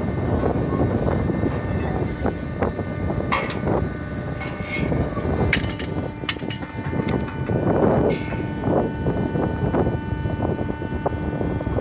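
Truck-mounted hydraulic well-service crane running steadily, its engine and hydraulics hoisting a long steel well pipe, with a few sharp clanks.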